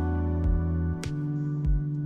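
Background music: a gentle instrumental with held notes, a bass line and a light beat about every half second or so.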